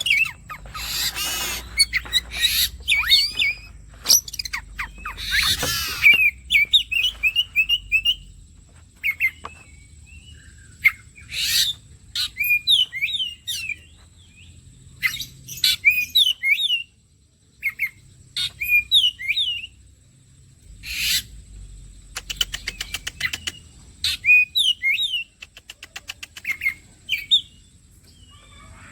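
Oriental magpie-robin (kacer) singing a lively, varied song of short whistled and chirped phrases, broken up by harsh rasping calls and a fast rattle about two-thirds of the way through.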